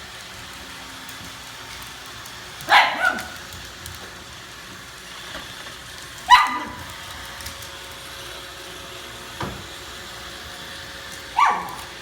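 A pug barking, short sharp barks a few seconds apart, a double bark first, over the steady hum of a running Roomba robot vacuum.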